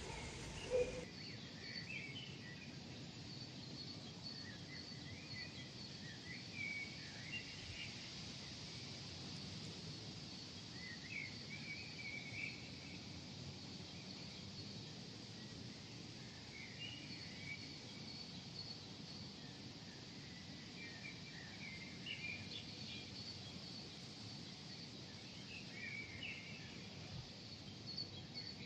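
Birds chirping and twittering now and then over a steady low city hum, with a high, fast-pulsing trill going on throughout. A short sharp sound comes in the first second.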